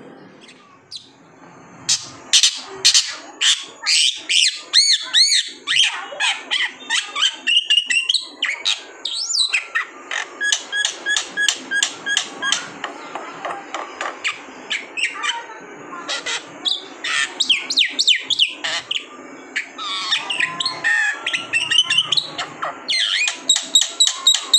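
Black-winged myna singing: a long, varied run of rapid chirps, whistles and sweeping notes in quick succession, starting about two seconds in.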